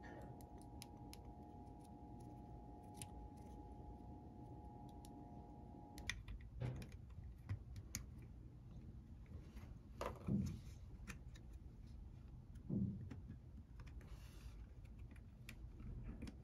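Faint clicks and light knocks of small plastic parts of a Canon EOS M camera being handled and set down on a table while it is taken apart. A faint steady whine cuts off suddenly about six seconds in.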